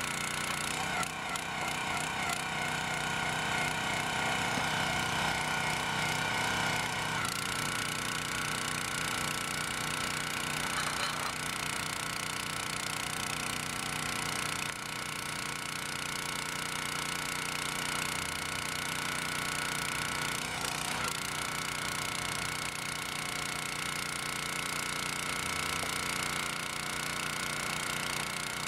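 Jansen HS-22A62 log splitter's 6.5 PS single-cylinder OHV petrol engine running steadily, driving the hydraulic pump. Its note shifts several times as the splitter works.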